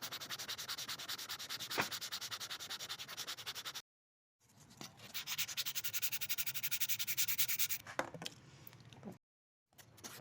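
Wood being sanded by hand with quick, even back-and-forth strokes. The rubbing breaks off abruptly about four seconds in, resumes a moment later, and turns fainter near the end.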